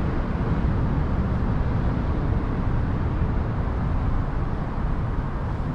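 Steady low rumble of distant city traffic, an even hum with no distinct events.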